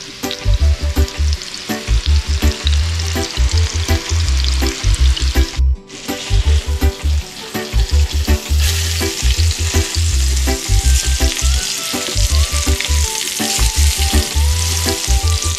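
Tuna steaks searing in butter in a nonstick frying pan, a steady loud sizzle, with the scrape of a slotted spatula as they are turned. Background music with a steady bass beat plays under it, and all sound drops out for an instant near the middle.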